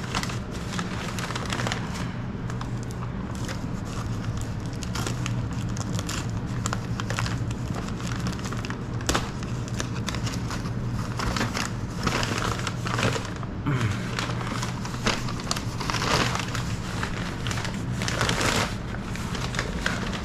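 Packaging crinkling and rustling in irregular handling noises, over a steady low hum.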